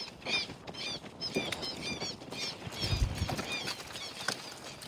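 A small bird chirping over and over in short, high, arched notes, a few a second, with a single low thud about three seconds in.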